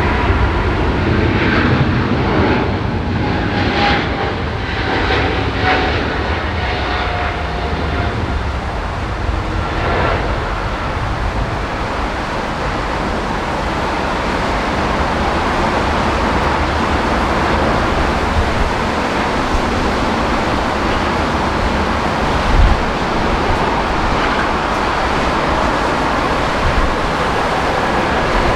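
Jet airliner engines running with a steady rush of noise, and a whine that falls slowly in pitch over the first several seconds.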